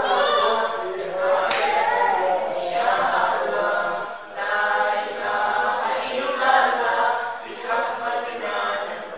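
Voices chanting a melodic Islamic prayer recitation, continuous apart from a short break about four seconds in.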